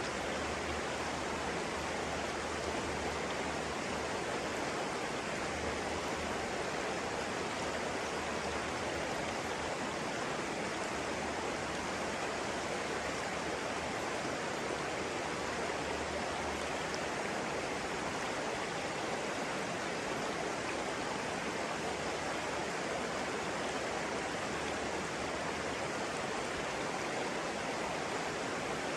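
Flowing water, a steady, even rush with no change in level.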